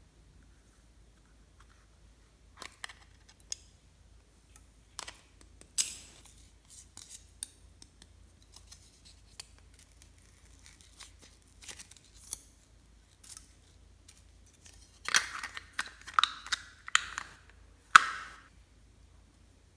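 Scattered crisp clicks and snipping sounds, with a run of louder ones about fifteen to eighteen seconds in.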